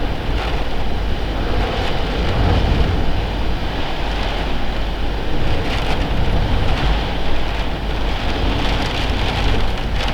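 Storm-force wind gusting, buffeting the camcorder's microphone with a heavy low rumble under a steady rushing noise that swells and eases.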